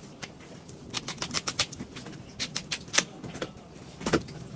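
Quick, irregular scraping strokes over the skin of a whole salmon as it is scaled and handled on a cutting board, heard as clusters of sharp clicks about a second in, near three seconds, and again just after four seconds.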